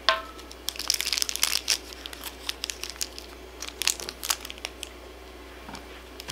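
Crinkly wrapper being pulled off a small plastic toy figure, an uneven run of dry crackles, heaviest in the first couple of seconds and again around the middle. It opens with a sharp plastic click with a brief ring as a small hinged plastic case is set down.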